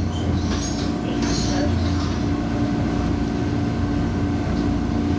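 MTR East Rail Line MLR (Metro-Cammell) electric train running at steady speed, heard from inside the car: a continuous rumble of wheels on rail with a steady hum of held tones from the running gear.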